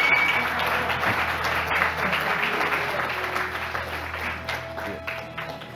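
Audience applauding, the clapping dying down gradually over the last couple of seconds.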